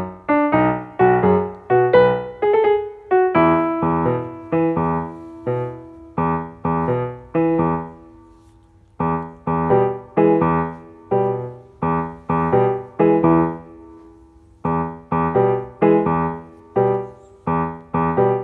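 Background piano music: a gentle run of single struck notes, each fading away, with two short pauses partway through.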